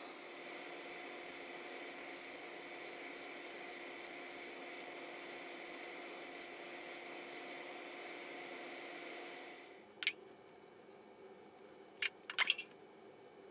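Steady hiss and hum of workshop machinery during power sanding of a wooden bowl on a lathe. It drops away about ten seconds in, leaving a few sharp clicks.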